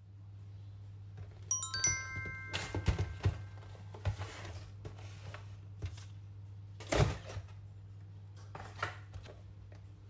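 A short bell-like chime about one and a half seconds in, over a steady low hum. Then scattered knocks and thumps of a cardboard box being handled and opened, the loudest about seven seconds in.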